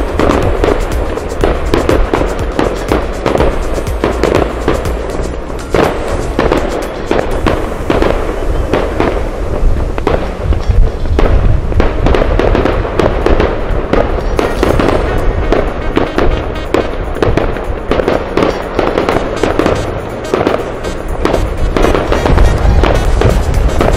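Fireworks display going off in a rapid, continuous run of bangs and crackling, with music playing along with it.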